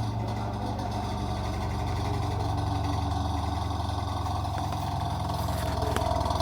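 Automatic washing machine running with a steady mechanical drone and hum from its gearbox, the noise of a faulty gearbox.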